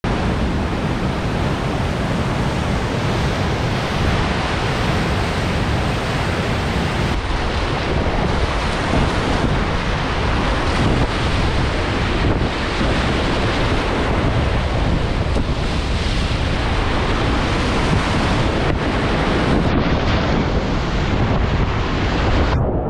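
Whitewater rapids rushing loudly and steadily, with wind and water noise buffeting the action camera's microphone.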